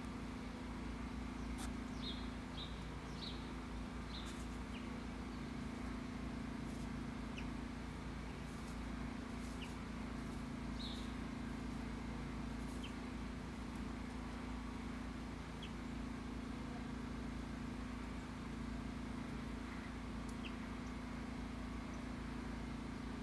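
Steady low outdoor rumble with a constant hum, over which small birds give a few short, high chirps, several in quick succession about two seconds in and another near the middle, with faint soft ticks scattered through.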